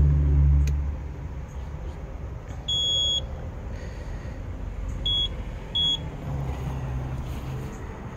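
Yoleny robotic lawn mower's electronic beeper sounding as the mower is switched back on: one beep of about half a second roughly three seconds in, then two short beeps at the same pitch a little under a second apart. A low rumble is heard at the very start.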